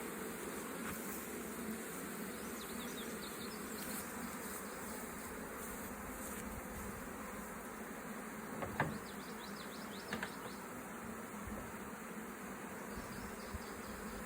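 Honeybees buzzing steadily around an open hive, the dense hum of many bees at once, with two brief knocks about nine and ten seconds in.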